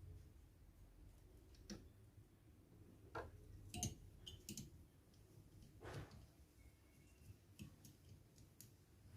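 Near silence with a faint low hum, broken by scattered light clicks and soft knocks, about seven in all, the loudest near the four-second mark.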